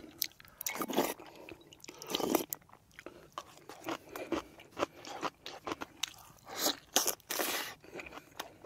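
Close mouth sounds of a man eating: chewing and biting rice cake soup and braised beef short ribs, with wet smacking and crunching in irregular bursts.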